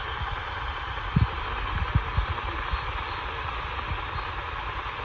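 Steady static hiss from a radio receiver, with a few short low thumps about a second or two in.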